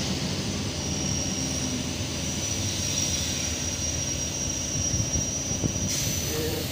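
Passenger train running slowly: a steady low rumble and hum with a thin, high, steady whine above it.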